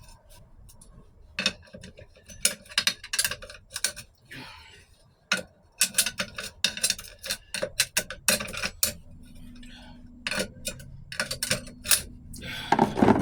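Steel transmission parts clinking and clattering, with screwdriver taps, as the forward clutch assembly is worked out of a 1993 4L60E automatic transmission. The sounds come as quick irregular clicks in bunches, with a louder clatter near the end.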